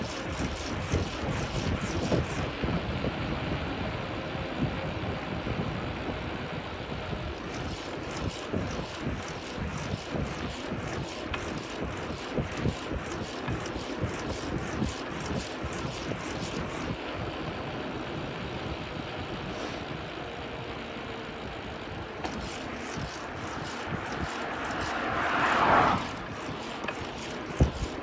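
Wind buffeting the phone's microphone while riding a bicycle on pavement, with a steady rumble of tyres and rushing air. Near the end a louder rushing swell builds and then cuts off suddenly.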